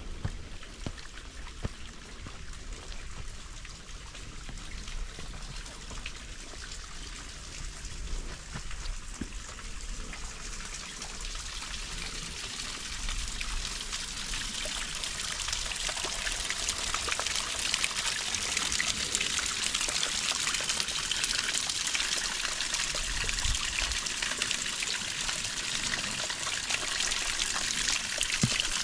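Water trickling: a steady splashing hiss that grows louder through the second half.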